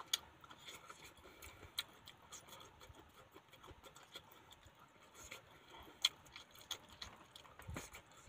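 A person eating by hand: faint chewing and lip-smacking, heard as a string of small, sharp clicks.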